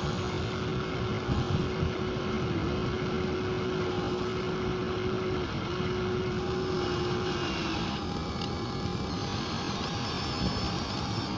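Radio-controlled model truck running: a thin, steady motor whine that dips briefly twice, over a steady rushing noise.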